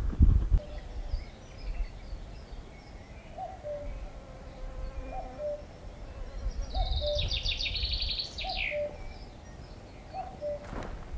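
Birds calling: one bird repeats a short low two-note call, a higher note then a lower one, about every two seconds. Another sings one quick trilled phrase about seven seconds in that ends in a falling flourish. Low wind rumble runs underneath.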